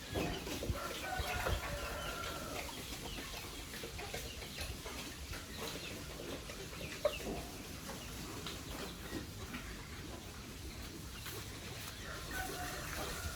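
Chickens clucking and calling against a general farmyard background, with one sharp knock about seven seconds in.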